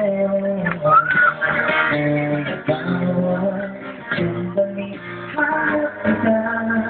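Live band music: a guitar-led instrumental passage with held chords, and a short rising note about a second in.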